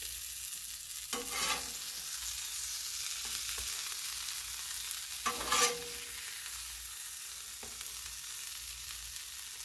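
Metal spatula scraping across the steel top of a Blackstone griddle twice, about a second in and again past five seconds, sliding under pizza slices to lift them. Under it runs a steady high hiss of food sizzling on the still-hot griddle.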